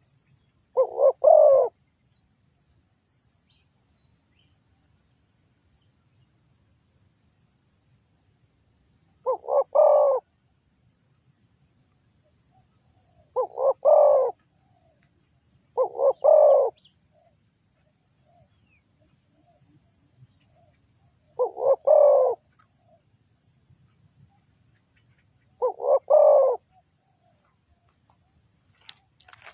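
Spotted dove cooing: six short phrases of two or three coos each, spaced unevenly a few seconds apart.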